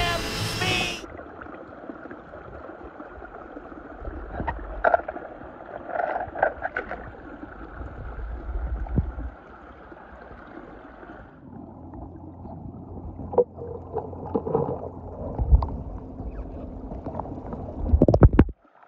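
A second of cartoon soundtrack music and voice, then swimming-pool water sloshing and gurgling, with scattered small knocks and splashes as toy cars are handled in the water.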